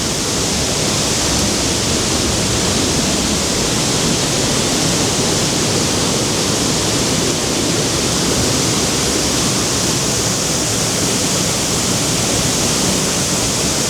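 Skútafoss waterfall heard up close: a loud, steady, unbroken rush of falling water, deafening at the foot of the falls.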